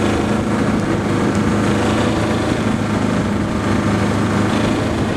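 A motor vehicle's engine running steadily as it drives along, a constant low hum.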